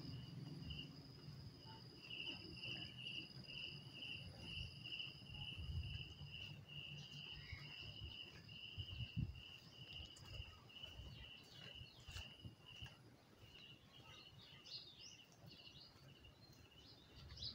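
Faint insects chirping: a thin steady high trill, and a repeated high chirp two or three times a second that stops about three-quarters of the way through. A few quick bird chirps come near the end.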